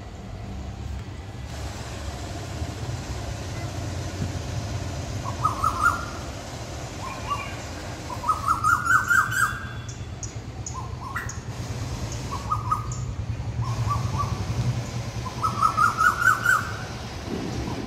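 Birds chirping: short runs of quick notes that climb in pitch, repeated every second or two, over a low steady rumble.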